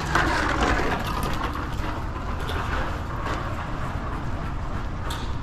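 Steady outdoor city ambience: a low, continuous traffic hum, with a few faint taps like footsteps on concrete.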